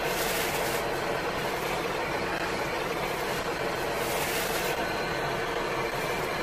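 Steady engine and air noise of an airliner in flight, heard from inside the lavatory. Paper sheets rustle briefly near the start and again about four seconds in as they are crumpled into the toilet bowl.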